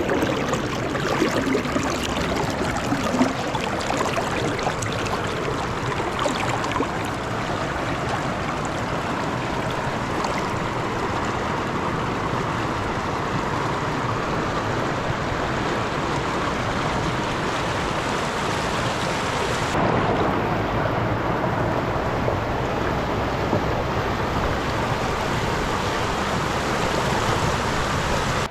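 Water of the Kaeng Saphue river rapids rushing over the rocks: a steady, loud rush. The highest part of the hiss drops away suddenly about twenty seconds in.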